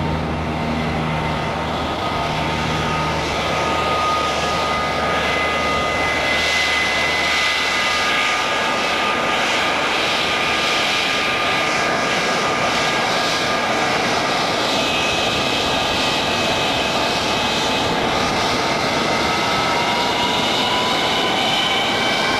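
North American F-100F Super Sabre's Pratt & Whitney J57 turbojet running at taxi power: a steady jet rush with several high whistling tones, which rise slowly in pitch over the last few seconds as the jet rolls closer.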